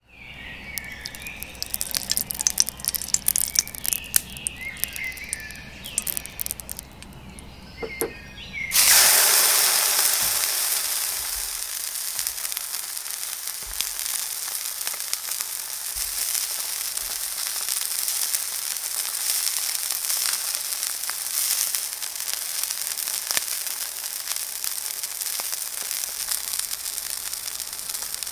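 Scattered sharp crackles and pops, then about nine seconds in a thick beef steak goes into a hot frying pan with a sudden loud sizzle. The sizzle eases slowly into a steady searing sizzle.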